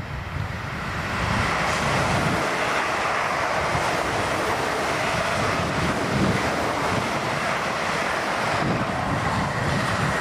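A twelve-car train of three coupled class 450 Desiro electric units passing through: a steady rush of wheels on rail and moving air that swells in the first second or so, with a faint high whine.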